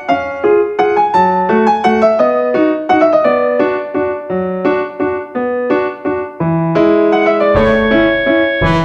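Background music: a piano playing a steady run of notes, a few a second, with a fuller low accompaniment joining near the end.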